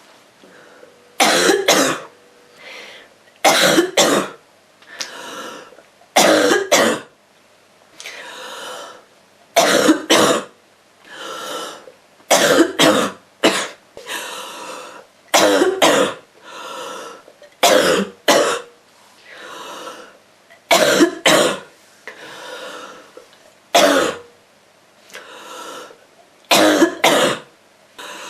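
A girl's rough cough from a cold, coming in repeated short fits of two or three sharp coughs about every two to three seconds.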